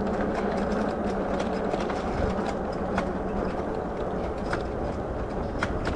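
Steady rumble of an e-bike's tyres on a dirt trail with wind on the camera, broken by a few sharp clicks about three, four and a half and near six seconds in.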